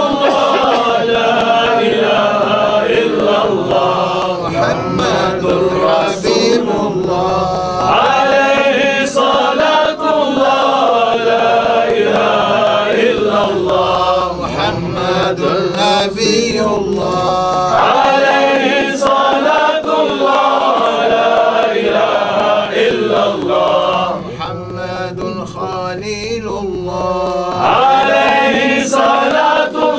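Group of men chanting Sufi zikr together, a repeated melodic recitation of the shahada and blessings on the Prophet. The chant drops quieter for a few seconds about 24 seconds in, then swells again near the end.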